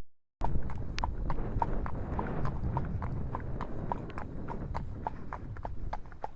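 Horse hooves clip-clopping at a walk on a hard surface, several strikes a second, with wind rumbling on the microphone underneath. The sound cuts out briefly at the very start.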